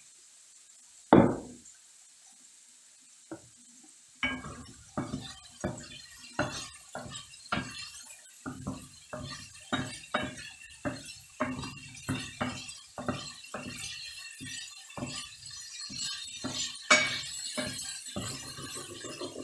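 Kitchenware clinking: one sharp knock about a second in, then a steady run of utensil-on-dish clinks, about two a second, like stirring or scraping in a pot or bowl.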